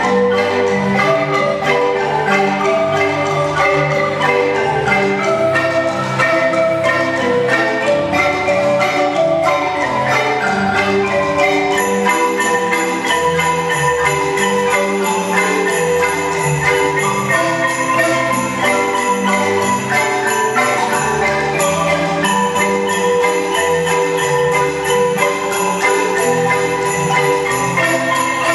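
A marimba ensemble, several players with mallets on large wooden marimbas, playing a continuous tune with melody and chords in quick, steady strokes.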